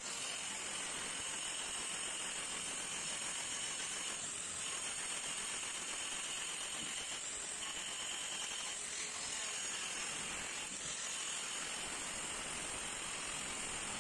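Handheld electric tile cutter with a diamond disc running steadily as it cuts a curved line through a ceramic floor tile: a high whine over a grinding hiss, wavering slightly a few times as the blade's load changes.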